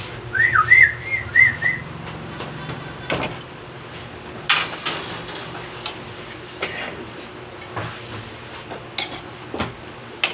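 A quick run of about six high whistled chirps in the first two seconds. After it come scattered single knocks and clatter, as of containers and utensils being handled, over a steady hum.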